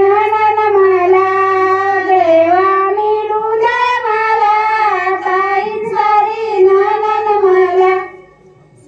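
A woman singing a traditional Marathi wedding song into a microphone, amplified, in long held notes that waver in pitch, with a steady low hum from the sound system beneath; the singing stops about eight seconds in.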